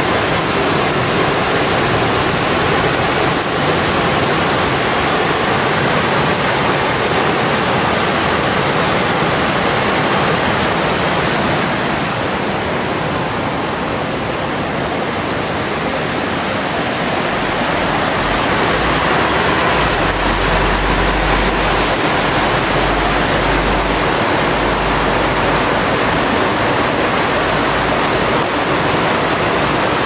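A rocky mountain river rushing and cascading over boulders: a steady, loud rush of white water, slightly fainter for a few seconds midway.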